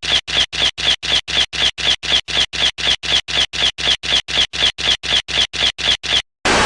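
A rapid, evenly spaced series of short scratching strokes, about four a second, that stops shortly before the end.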